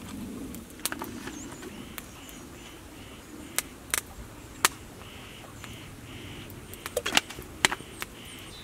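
Scattered sharp clicks and taps, a few at a time with a small cluster near the end, over a faint outdoor background with a high, faint chirping that repeats a few times a second.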